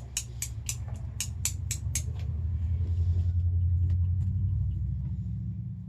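Sprinkles being shaken out of a container in a steady rhythm, about four sharp rattles a second for the first two seconds, over a low rumble that grows louder in the middle.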